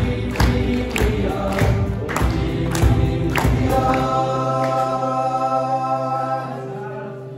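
Teenage boys' vocal group singing a pop-style song to acoustic guitar, piano and cajón, the cajón keeping a steady beat. About four seconds in the drumming stops and the voices and instruments hold one long chord.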